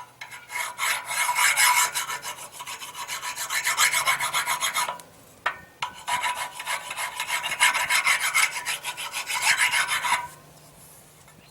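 Hand file rasping across the steel cutting wedge of a Harbor Freight 93815 4-ton electric log splitter, sharpening its blunted edge with quick repeated strokes. It works in two runs, with a short pause a little past halfway, and stops about a second before the end.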